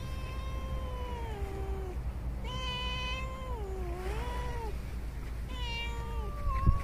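Cats meowing: three long, drawn-out meows one after another, sliding and wavering in pitch. A steady low rumble runs underneath, and a brief thump comes near the end.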